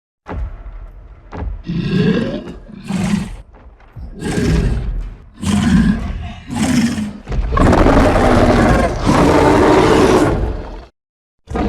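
Skar King's film creature vocalisation, a giant ape monster: a run of about five short grunting calls roughly a second apart, then one long loud roar lasting about three and a half seconds near the end.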